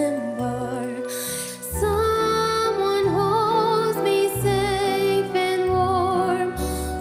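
Slow, gentle song: a singer holds long notes with vibrato over soft accompaniment, with bass notes changing about once a second.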